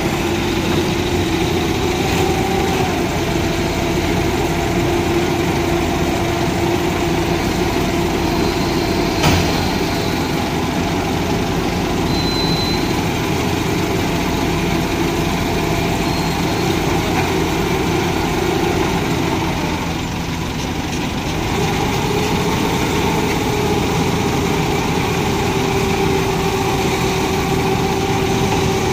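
Heavy crane tow truck's engine running steadily, with one sharp knock about nine seconds in; around twenty seconds in the engine note drops briefly, then settles back at a slightly different pitch.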